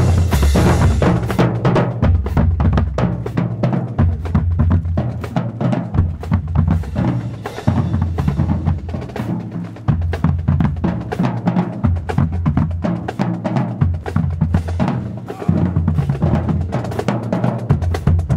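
Marching band drumline playing a marching cadence: rapid snare drum strokes and rolls over heavy bass drum beats, in phrases with brief breaks between them.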